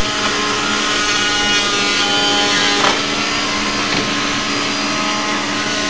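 Electric power tool running steadily: a constant machine hum with a higher whine on top, with no change in speed.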